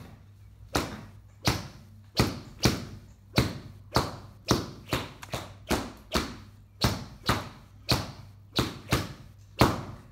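Repeated sharp hand slaps, about seventeen smacks at an uneven pace of roughly two a second.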